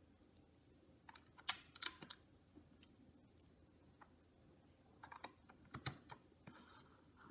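Faint, scattered clicks of plastic LEGO bricks being handled and pressed together, a few around the first two seconds and a few more near the end.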